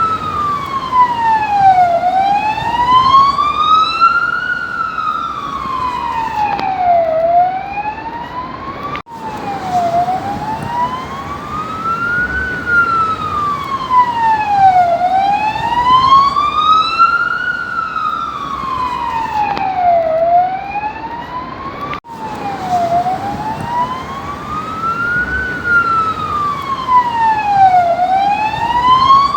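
Police siren sounding a slow wail: one tone rising and falling over and over, each sweep up or down taking about two and a half seconds. The sound cuts out for an instant twice, about 13 seconds apart.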